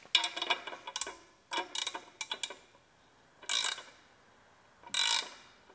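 Ratchet wrench clicking in several short runs of sharp metallic clicks as it turns a new stud, gripped by two jammed nuts, into a freshly tapped exhaust manifold.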